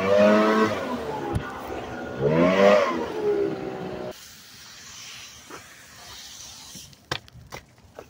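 Two-stroke engine of an Echo leaf blower revved up and let back down twice, then cutting off abruptly about four seconds in; a couple of sharp clicks follow near the end.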